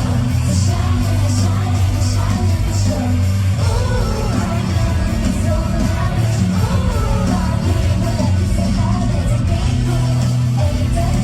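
Live pop concert music over a PA: a bass-heavy backing track with a steady beat and singing over it.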